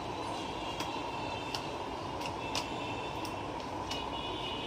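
Light, scattered clicks and taps of small objects being handled on a workbench, about six in all, over a steady background hiss.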